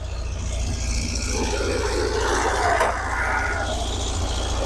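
Air-cooled 1969 VW bus engine idling steadily, set too high. A rough scraping or rubbing noise rises over it for a couple of seconds in the middle.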